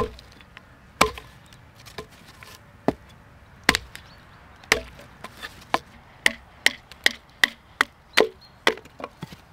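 Wood being chopped for a cooking fire: sharp chopping strikes into wood, spaced about a second apart at first, then coming quicker, two or three a second, toward the end.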